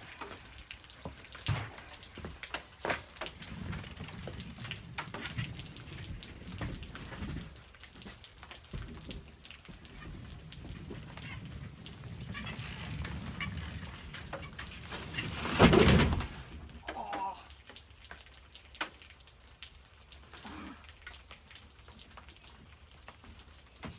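Rain dripping and tapping, then, about two-thirds of the way in, one loud crash as a BMX bike and its rider slide out and go down on a wet wooden deck.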